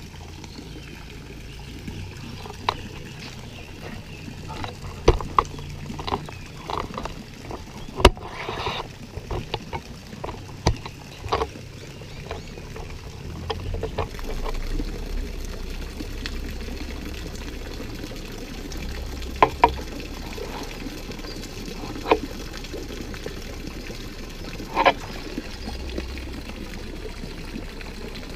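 Steady running, trickling water, with scattered sharp clicks and knocks.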